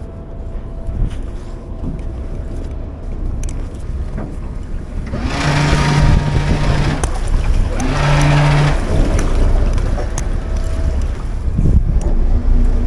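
Rescue boat's engines running, with wind on the microphone. There are two louder bursts of steady-pitched hum with hiss, about five and eight seconds in, the first about a second and a half long.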